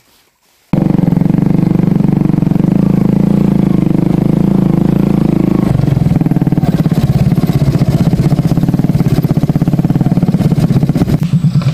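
Motorcycle engine running, heard from the rider's seat while riding along a dirt track; it starts abruptly about a second in, and from about six seconds its note turns into a rapid throbbing pulse.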